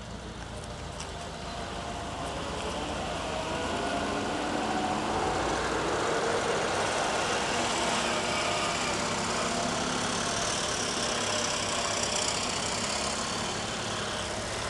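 German WWII motorcycle-and-sidecar combinations with flat-twin engines running as they drive past one after another, getting louder as they come close and easing off near the end, after the deeper engine of an M8 Greyhound six-wheeled armoured car at the start.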